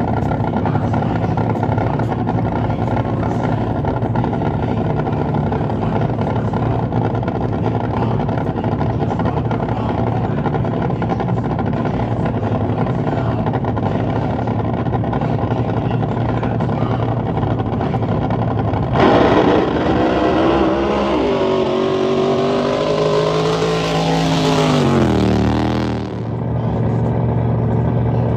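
Drag boat engines running with a steady, even drone. About nineteen seconds in, a much louder engine sound cuts in abruptly, its pitch sliding down over several seconds before it stops suddenly about seven seconds later.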